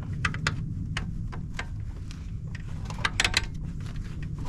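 Irregular light metallic clicks and clinks of a socket and wrench working the alternator's mounting bolts, with a cluster of quicker clicks about three seconds in, over a steady low hum.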